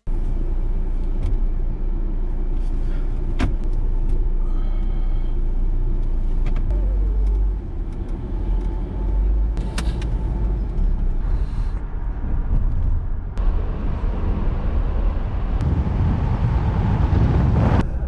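Steady road and engine noise of a car being driven, heard from inside the cabin: a continuous low rumble with a few light clicks. About two-thirds of the way through the noise turns hissier and louder in the upper range.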